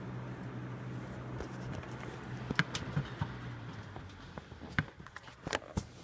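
Engine of a car stuck in deep snow, running at steady revs as it tries to get out, dying away about four seconds in. Scattered sharp clicks and knocks follow near the end.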